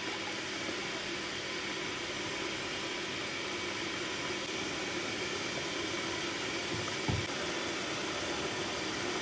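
Lit gas stove burner giving a steady rushing hiss with a faint hum, and a single low knock about seven seconds in.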